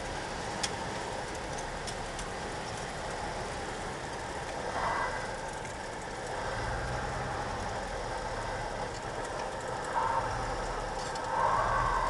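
Light single-engine propeller airplane's engine and propeller running at low power, heard inside the cockpit, through touchdown and rollout on the runway. A short click comes about half a second in, and brief higher tones with louder moments come around five seconds and near the end.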